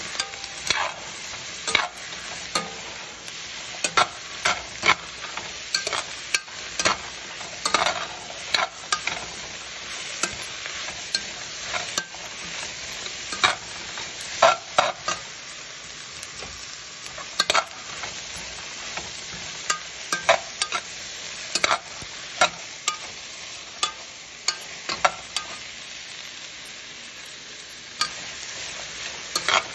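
Sliced carrots, yellow squash and zucchini sizzling as they are stir-fried in olive oil in a nonstick frying pan. A spatula scrapes and knocks against the pan many times at an irregular pace.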